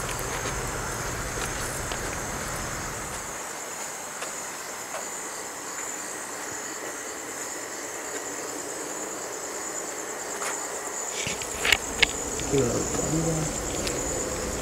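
Crickets trilling steadily in a continuous high chorus, with two sharp clicks about twelve seconds in.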